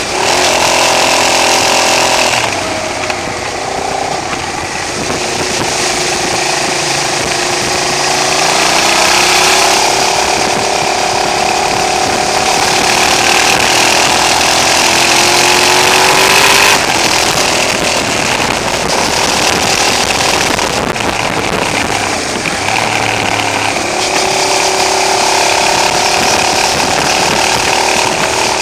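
Motorcycle engine running under way, heard from the bike itself with wind rush, the recording harsh from a camera level set too high. The engine note climbs slowly for long stretches, with abrupt changes in pitch about 2.5 seconds and 17 seconds in.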